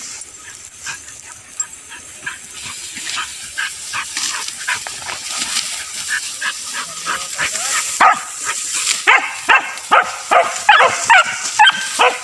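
Hunting beagles barking and baying while trailing game. The calls are faint at first, then about eight seconds in a rapid run of loud barks starts, about two a second, and grows louder.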